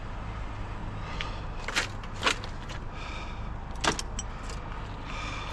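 A few sharp clicks and knocks over a steady low hum: two close together about two seconds in and a third near four seconds.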